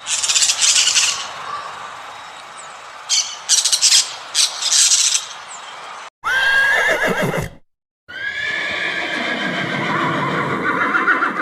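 Animal calls from several short clips cut together. First come harsh, noisy, high-pitched calls for about five seconds. Then there are two long calls with a wavering pitch, the first falling away, separated by a brief silence.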